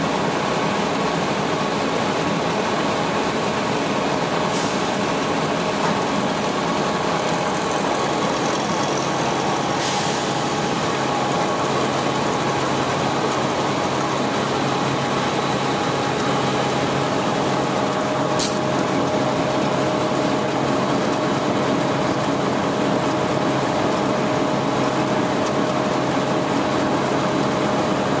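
Printing and paper-handling machinery running with a steady mechanical noise while printed sheets travel along a conveyor and over rollers. There is one short sharp click about two-thirds of the way through.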